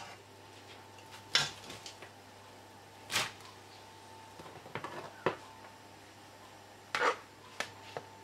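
A wire skimmer clinks lightly against a metal pan and a steel bowl as blanched beet stalks are lifted from boiling water into cold water. About six short knocks are spread across the stretch, over a faint steady hum.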